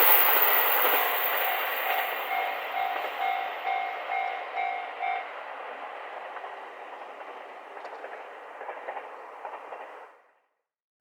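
KiHa 261 series diesel limited express train passing a level crossing and pulling away, its wheel and engine noise fading with a few clacks over rail joints. The crossing's warning bell rings at about three strokes a second and stops about five seconds in. The sound cuts out abruptly near the end.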